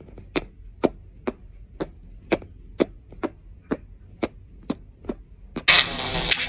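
Sharp taps or knocks at a steady pace of about two a second, followed near the end by a sudden, much louder noisy sound.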